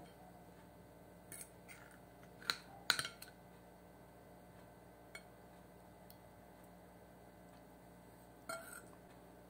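Knife and fork clinking and scraping against a plate as spaghetti is cut and eaten. A few short, sharp clinks, the loudest two coming close together about two and a half to three seconds in, and another near the end.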